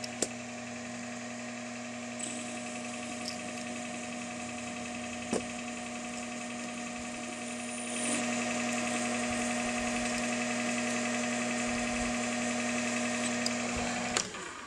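Metal lathe running with a steady whine from its spindle drive. About eight seconds in it grows louder and hissier as the cutting tool takes a cut on the small turned part, and the lathe stops shortly before the end.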